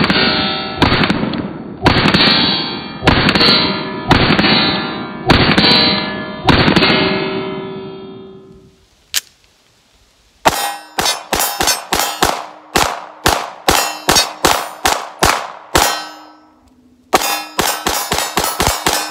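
Pistol shots from a Glock fitted with a Strike Industries Mass Driver, each hit clanging off steel plate targets that ring after it. First comes a slow string of about one shot a second. After a short pause and a single click, two fast strings of shots follow, the steel ringing on between them.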